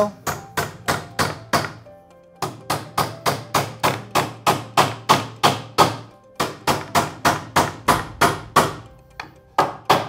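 Hammer driving the nails of a plastic nail-on electrical box into a wooden stud: quick, steady strikes about three or four a second, in three runs with short pauses, and one last blow near the end.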